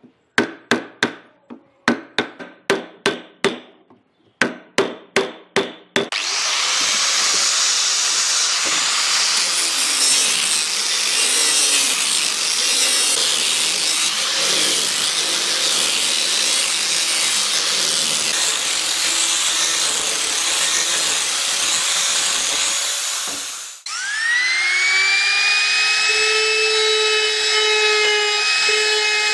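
Runs of quick hammer blows, each with a short ringing tone, for about the first six seconds. Then a power tool works the wood with a loud, steady noise. It cuts out near the end, and a motor spins up with a rising whine and settles to a steady run.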